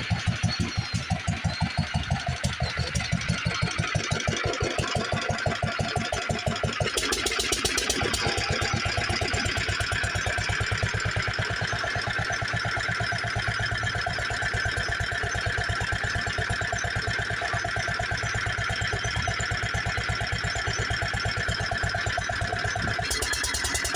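International Harvester LA 3–5 hp single-cylinder engine running at a steady speed, beating evenly as it drives the lineshaft and its belted machines. About seven seconds in, a higher, busier whirring of the shop machinery joins and carries on over the engine's beat.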